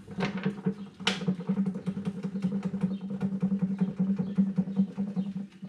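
A foil-laminate pouch crinkling and crackling as it is squeezed and rolled to push the last of the malt extract into a plastic fermenter bucket, over a steady low hum.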